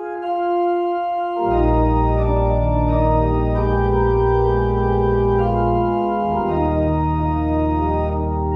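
Church organ playing a postlude in slow, sustained chords; deep bass pedal notes come in about a second and a half in and change pitch near the six-second mark.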